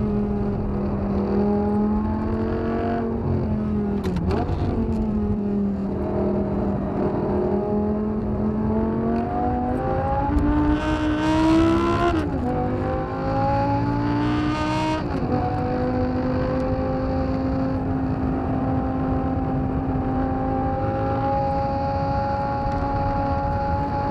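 Tuned first-generation Audi R8's 5.2-litre V10, through a Quicksilver Supersport exhaust, heard from inside the cabin under hard track driving. Engine pitch rises and falls as it pulls through the gears, climbing loudest to a sudden drop a little after halfway at a manual upshift, dropping again a few seconds later, then a long, slowly rising pull.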